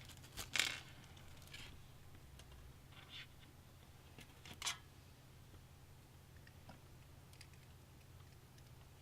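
A few light clicks and scrapes of a small 80 mm case fan and PC case parts being handled during fitting, sharpest in the first five seconds. After that there is little more than a faint steady low hum.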